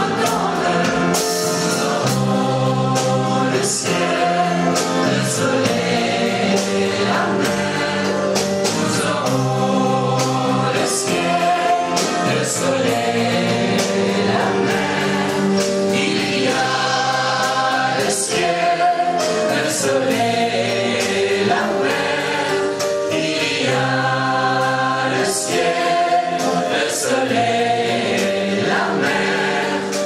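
Mixed choir of male and female voices singing a 1960s French yé-yé pop song in unison and harmony, amplified through microphones.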